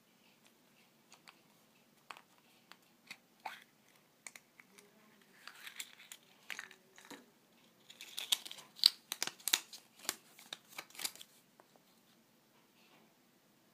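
A chocolate surprise egg's plastic toy capsule being handled with a few sharp clicks, then its folded paper leaflet being pulled out and unfolded, crinkling and rustling, busiest in the second half.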